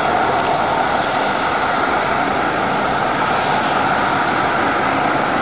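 Boeing 737-500's CFM56-3 turbofan engines running steadily and loudly as the airliner rolls along the ground.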